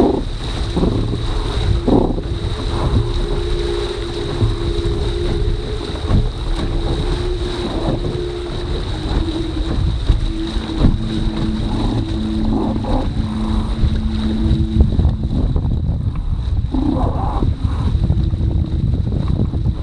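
Wind buffeting the microphone of a camera mounted on a foiling sailing dinghy, with water rushing and splashing past the hull. Through it runs a steady hum that shifts in pitch every few seconds.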